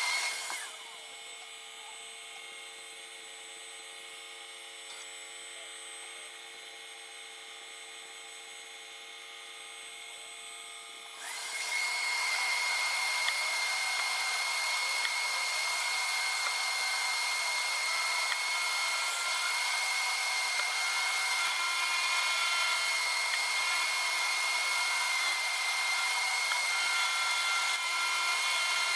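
Small CNC milling machine with a quarter-inch end mill, its spindle belted for higher speed, making a roughing pass in metal. After a brief burst of cutting, the noise drops for about ten seconds to a few steady motor tones. About eleven seconds in, the loud cutting noise returns and runs steadily, with a high whine over it.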